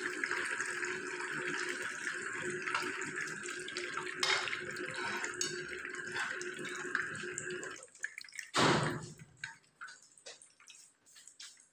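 Hot oil sizzling and bubbling in a frying pan, a steady hiss that stops about eight seconds in. One short loud rush of noise follows, then a few light clicks.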